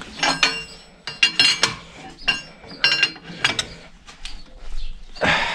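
Irregular metal clinks and clanks of a wrench working on a tractor's three-point hitch linkage and chains, each strike ringing briefly.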